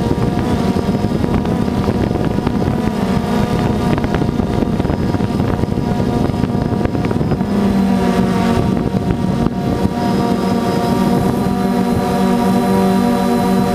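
DJI Phantom 2 quadcopter's electric motors and propellers droning steadily, heard close up from on board, with a rushing noise of air over the microphone. The pitch of the drone shifts slightly about eight seconds in as the motor speeds change.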